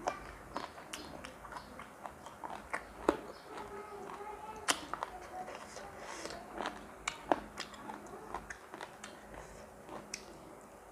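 A person eating close to the microphone, chewing and biting with irregular crisp crunches and clicks, over faint background music.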